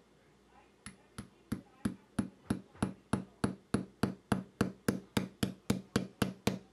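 Small ball-peen hammer tapping a steel roll pin into an Aero Survival Rifle bolt head: a steady run of light metal-on-metal taps, about three a second, starting about a second in. The pin is being driven home to push out the 1/16 drill bit that held the left-hand extractor and to lock the extractor in place.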